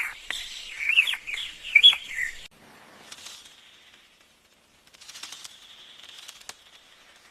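A quick run of short, high chirping calls for about two and a half seconds, then only faint scattered ticks.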